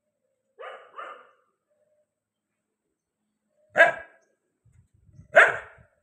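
A dog barking: two quieter barks in quick succession about half a second in, then two loud single barks about a second and a half apart near the end.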